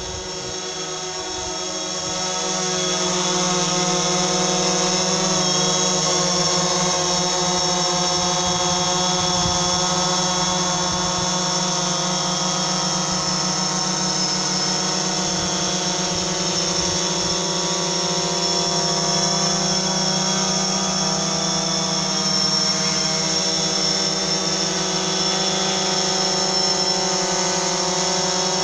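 DJI Phantom 3 Standard quadcopter's four brushless motors and propellers buzzing steadily in flight, a whine made of several steady tones that grows louder over the first few seconds and then holds.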